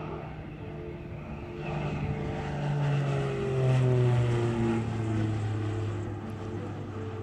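Twin piston engines and propellers of a Piper Navajo droning as it climbs out and flies past. The sound swells and its pitch falls as the plane goes by, loudest about four seconds in.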